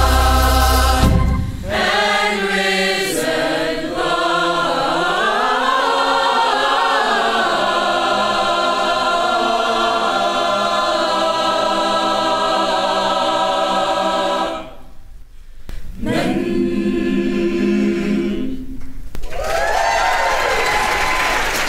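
Large gospel choir singing long held chords unaccompanied after the band drops out about a second in, breaking off briefly and then singing a final chord. Audience applause starts near the end.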